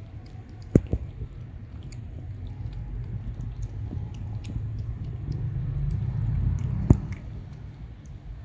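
Cats and kittens chewing and lapping wet cat food from paper plates close up, with many small wet clicks over a low rumble. Two sharp knocks, about a second in and again near the end, stand out above the eating.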